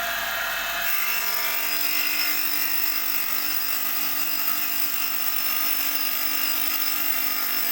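Stone cutting machine running steadily under load as its wheel grinds along the edge of a stone slab, the tone shifting a little about a second in.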